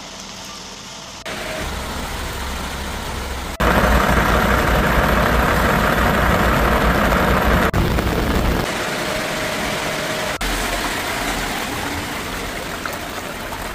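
Rain and floodwater noise with a motor vehicle engine running under it, changing abruptly several times; loudest for about four seconds in the middle.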